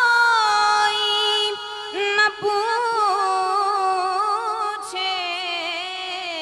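A woman singing an Urdu naat without instruments, drawing out long wavering notes. There is a short break for breath about two seconds in.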